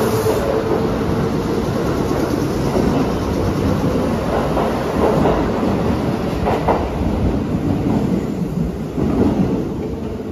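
Kintetsu Aoniyoshi sightseeing express train pulling out of an underground station, wheels clacking over rail joints and points. The sound fades near the end as the train runs off into the tunnel.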